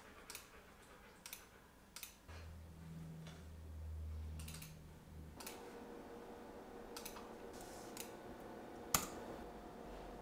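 Scattered computer keyboard and mouse clicks, a few at a time with gaps between, the sharpest about nine seconds in. A low hum runs for about three seconds in the first half.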